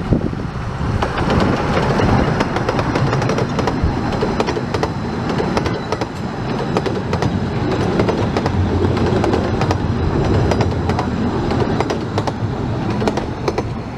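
A train on the 15-inch gauge Ravenglass & Eskdale Railway running past, its wheels clicking steadily over the rails, with wind on the microphone.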